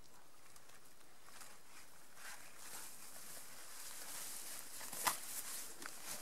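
Soft rustling of grass, ferns and clothing with footsteps as a person gets up and walks through the undergrowth, growing from about two seconds in, with a sharp click about five seconds in.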